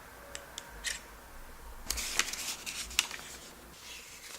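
Hands handling small plastic gear: a few light clicks in the first second, then about a second of rustling and scraping with sharper clicks, ending in a click about three seconds in.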